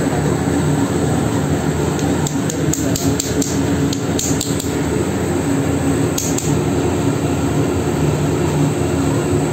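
Triple roll mill running with its steel rollers grinding a paste: a steady machine drone with a low hum. A run of sharp clicks comes about two to four and a half seconds in, and a short group of clicks comes again about six seconds in.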